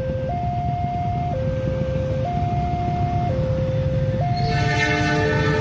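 Railway level-crossing warning alarm sounding a two-tone high-low signal, each tone held about a second, over a low traffic rumble. About four seconds in, the horn of an approaching locomotive joins as a chord of several tones.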